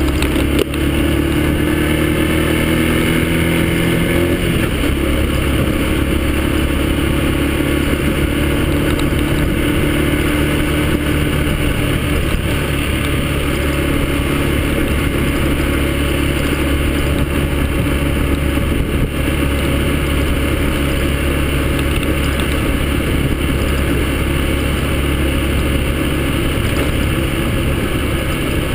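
Yamaha XTZ125's single-cylinder four-stroke engine running steadily while the bike is ridden, heard from the rider's seat over wind and road noise. The engine note shifts about four to five seconds in, then holds steady.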